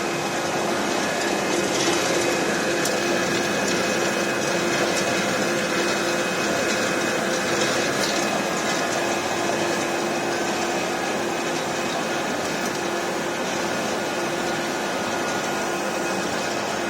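Wood sawdust pellet mill, the XGJ560 with its 132 kW main motor, running steadily: an even machine noise with a constant hum.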